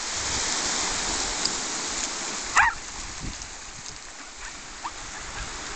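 Waves washing over a shingle beach in a steady hiss, with a dog giving one short, high-pitched bark about two and a half seconds in and a faint second yip near the end.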